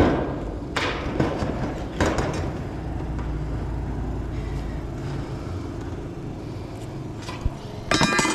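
Handling of a speed square and tools on a sheet-steel roofing panel: a sharp knock at the start and a few lighter clicks, then a short metallic clatter near the end as the tools are set down, over a steady low rumble.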